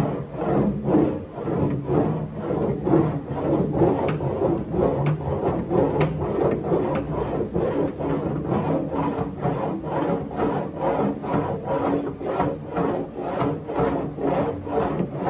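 A homemade mini English wheel, a pair of wheels on a locking C-clamp, rolling back and forth over a bare-metal car rear quarter panel in quick rhythmic passes, about two to three a second, with a rubbing, rasping sound. The wheel is running over the bumps of a dented panel, planishing it smooth.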